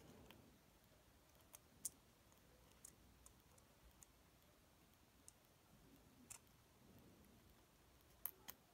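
Faint, scattered sharp clicks and ticks from fingers and small parts on an opened iPhone 6S being reassembled, about eight in all, the loudest about two seconds in and near the end, over near-silent room tone.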